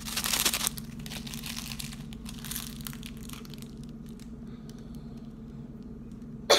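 Plastic packaging crinkling as it is handled: a loud burst in the first half second or so, a fainter one about two and a half seconds in, then light rustles and clicks.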